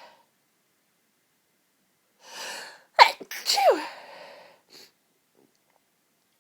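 A woman's sneeze during a sneezing fit: about two seconds in, a quick breathy in-breath, then a sharp, intense sneeze in two rapid bursts, each with a voiced cry falling in pitch, trailing off into breath.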